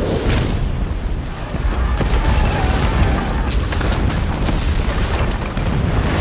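Film sound effects of a dragon breathing fire onto stone towers: a loud, dense rush of flame over deep booming explosions and rumble that never lets up.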